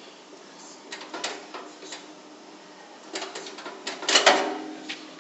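Pry bar forced into the edge of a locked metal safety locker's door: scattered metal clicks and knocks as it is levered, then a loud burst of metal-on-metal scraping with a ringing tone about four seconds in.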